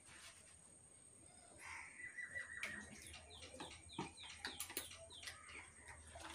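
A bird calling: a short held whistle about two seconds in, then a run of quick falling chirps, about three a second.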